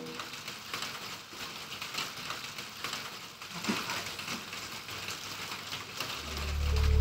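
Steady rain falling, a soft hiss made of many small drop hits. Low music begins to swell in near the end.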